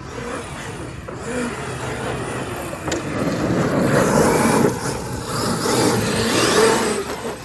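Traxxas XRT RC monster truck running on 8S. Its brushless motor and drivetrain whir with a wavering pitch, growing louder from about three seconds in, with a single sharp click near three seconds.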